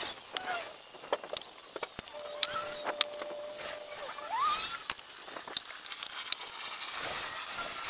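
Fast-forwarded sounds of hand work stacking split firewood: sharp, irregular knocks of wood on wood, about a dozen in all, with a short steady tone and a high rising squeak near the middle.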